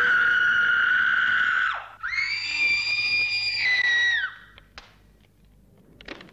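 Two long, high-pitched screams from a woman, one after the other, the second pitched higher. Each drops in pitch as it breaks off, and a few faint taps follow.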